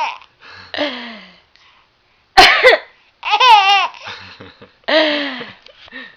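An adult's sharp cough about two and a half seconds in, answered right away by a baby's high, wavering laugh. Softer laughs and breaths come before and after.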